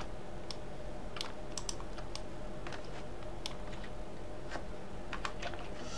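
Irregular, scattered clicks of a computer mouse and keyboard being worked while selecting and orbiting in a 3D modelling program, over a faint steady electrical hum.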